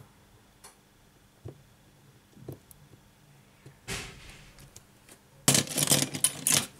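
Small clicks of tweezers and fingers working on an opened smartphone's circuit board and connectors, then about a second and a half from the end a louder burst of rustling, scraping handling noise lasting about a second.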